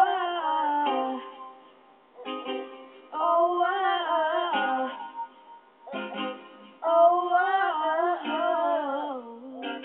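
A girl singing a song in three short phrases with pauses between them, each phrase starting after a strummed chord on a small plucked string instrument.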